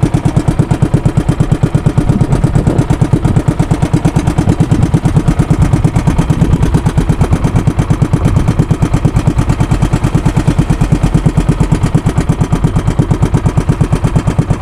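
Small engine running steadily and loudly close by, with a rapid, even pulse.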